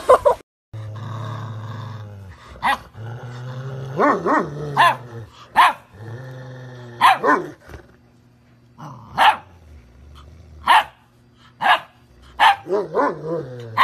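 Rottweiler puppy barking in short, high-pitched yaps, about a dozen at uneven spacing, over a low steady rumble during the first half.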